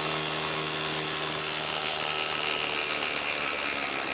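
Milwaukee M18 impact driver, fitted with a half-inch anvil, hammering steadily in reverse as it backs a long lag screw out of a wooden log.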